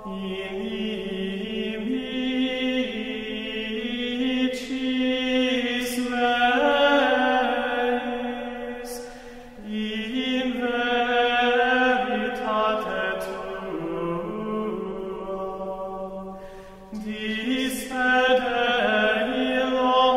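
Slow, meditative vocal chant as background music, sung on long held notes that step from pitch to pitch, with short pauses between phrases about nine and seventeen seconds in.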